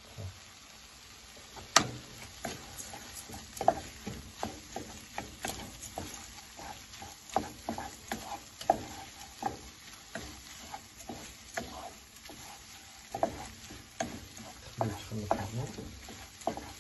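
A wooden spoon stirring rice and vegetables in a pan, knocking and scraping against the pan at irregular intervals, over a low sizzle of frying. The rice is toasting in the oil with the vegetables before the fish stock goes in.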